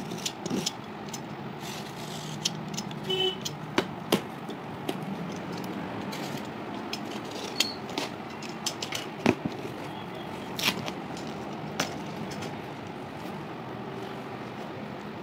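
A cardboard carton being opened by hand: a box cutter scraping through packing tape, then the cardboard flaps pulled back. It is heard as scattered scrapes, taps and clicks over a steady background hum.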